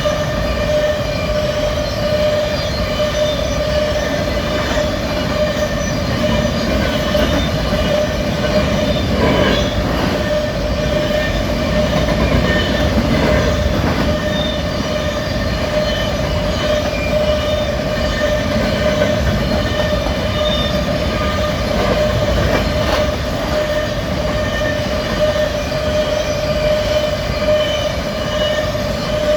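Freight train rolling past: a steady rumble of steel wheels on rail, with a steady high ringing tone and a few knocks from passing wheels.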